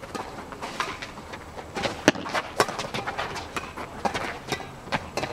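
Badminton rally: irregular sharp taps of rackets striking the shuttlecock, mixed with players' shoes scuffing and stepping on the hard court.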